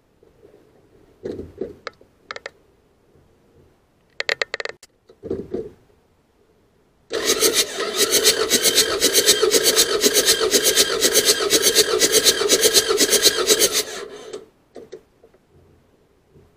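Diesel engine turned over on its starter for about seven seconds during a cylinder compression test, a steady, evenly pulsing mechanical noise from the cranking. Before it come a few short clicks and knocks from handling the tester fittings.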